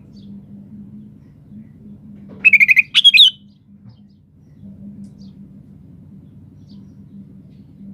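Sooty-headed bulbul (kutilang) singing: two short, loud phrases in quick succession about two and a half seconds in, over a steady faint low hum.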